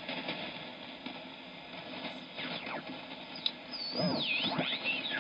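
Kenwood TS-590SG HF transceiver receiving 80 m lower sideband through an extension loudspeaker while its tuning knob is turned: band hiss, then mistuned voices and a whistle sliding down and up in pitch as the tuning sweeps past stations.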